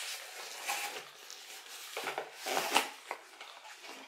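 Hands handling and opening a cardboard box: cardboard rubbing and scraping, with a few sharper knocks, the loudest about two and a half seconds in.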